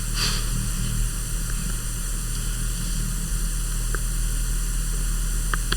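Hunter Builder Plus ceiling fan running on low speed: a steady low hum with an even hiss, and a couple of faint ticks near the end.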